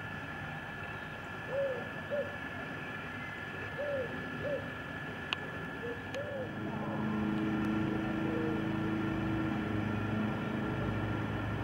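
A bird calls in short, low hoots that come in pairs about half a second apart, three times. About six seconds in, the steady drone of an engine rises and stays.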